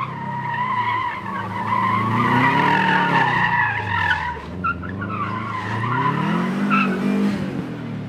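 Subaru Impreza wagon rally car sliding on tarmac: the tyres squeal in a steady high screech, briefly letting up a little past halfway. Under it the flat-four boxer engine's revs rise and fall twice.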